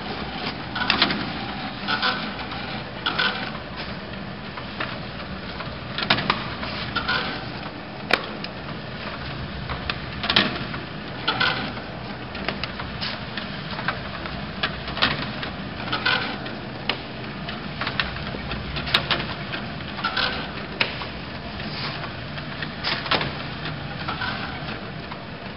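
GER Loto S 3200 leather measuring machine running with a hide feeding through on its conveyor: a steady hum with irregular sharp clicks and knocks, and now and then a short squeak.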